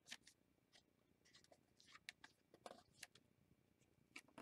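Faint, scattered rustles and light taps of stiff collaged paper pages being turned and handled by hand.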